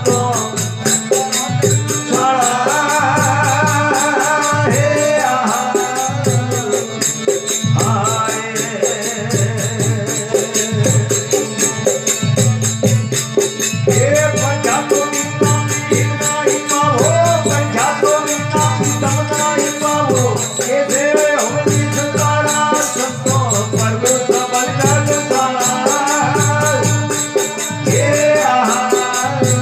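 Rajasthani devotional bhajan: a man sings with harmonium, over a steady low pulse from a plucked veena (tambura-style drone lute). Small hand percussion jingles in a fast, even rhythm throughout.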